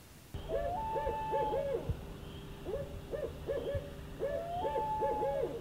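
Owl hooting at night: three phrases of quick hoots, each about a second long, roughly two seconds apart, over a steady low hum.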